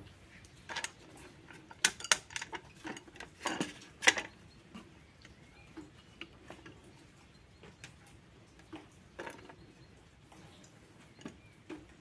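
Cut plastic bottle parts of a homemade bird feeder being fitted together and handled: scattered clicks, taps and crinkles of thin plastic, loudest in a cluster about two to four seconds in, then fewer and fainter.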